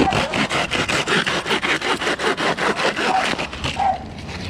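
Hand pruning saw cutting through palm fronds in fast back-and-forth strokes, about five a second, easing off about four seconds in.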